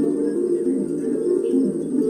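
Soft background music of low, held tones that shift pitch every fraction of a second.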